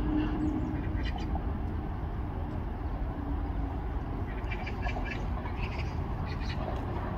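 Eurasian coots giving short, sharp calls in several small clusters over a steady low rumble of traffic.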